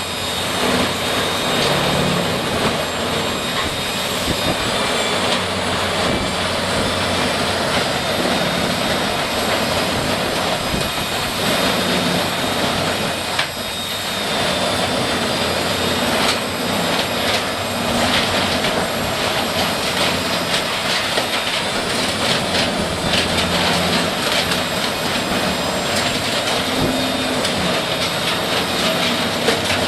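Heavy wood-processing machine running with a loud, steady drone, with scattered short knocks and cracks around the middle.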